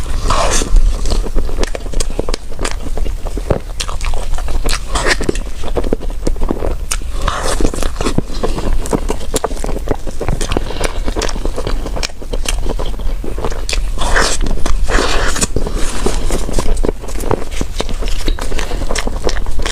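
Close-miked eating: a person biting and chewing bread, with irregular crackly, crunchy clicks from the food.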